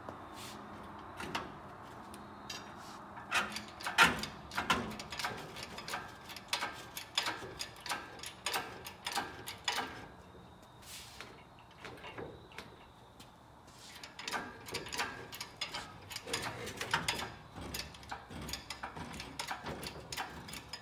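Hand-pumped hydraulic engine hoist lifting a small-block Chevy V8 out of the engine bay: irregular clicks and clanks from the hoist and the hanging engine, with a pause of a few seconds midway.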